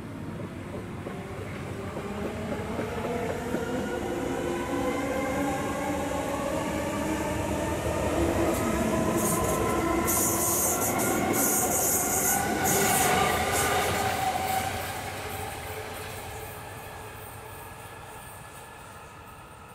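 Hamburg S-Bahn electric multiple unit pulling into the platform, its traction-motor whine falling in pitch as it brakes. A high-pitched squeal comes for a few seconds about halfway through, then the train noise fades as it slows to a stop.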